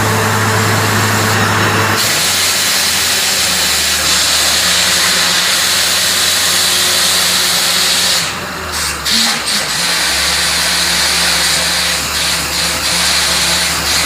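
Borewell drilling rig running: a steady engine drone under a loud hiss. The engine note drops about two seconds in, and the noise briefly breaks up a few times a little past halfway.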